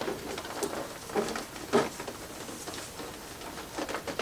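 Cloth rustling with scattered small knocks and clicks as the clothes on an animatronic Halloween prop are handled and tugged into place.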